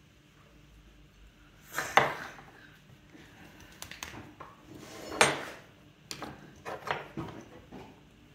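Metal hand tools clinking and clattering as they are picked up and set down: two sharp clatters about two and five seconds in, then a quick run of smaller knocks.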